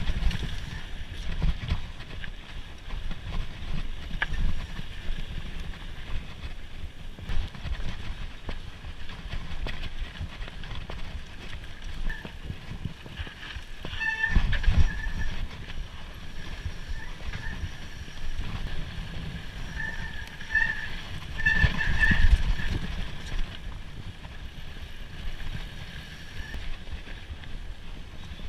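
Mountain bike riding on a trail: wind buffeting the microphone over a rough rumble of tyres and rattling. It gets louder twice, about halfway through and again about three-quarters through, with brief high squeaks.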